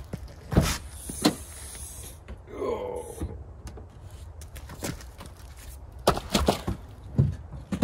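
Camp gear being unloaded and handled: a series of sharp knocks and thuds, several close together near the end, with a brief squeak about two and a half seconds in.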